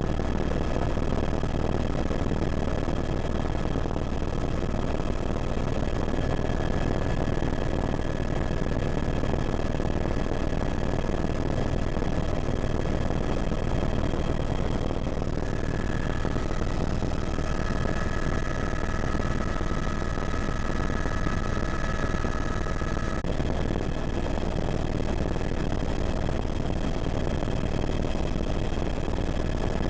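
Helicopter engine and rotor running steadily: a constant low drone under a high steady whine. A second whine tone joins about halfway through and cuts out a few seconds later.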